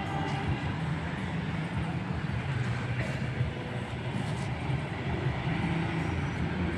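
Children's bicycle with training wheels rolling over concrete: a steady rumble.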